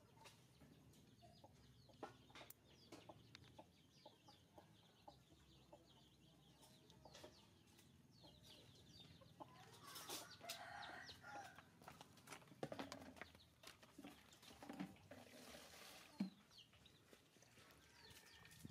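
Faint clucking of chickens, clearest about ten seconds in, among scattered light clicks and taps.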